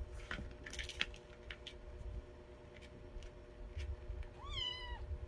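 Light scattered taps and clicks of a small kitten scampering and batting a feather wand toy on a wooden floor, then one short high-pitched kitten meow near the end, which the owner takes as the kitten being cross at playing alone.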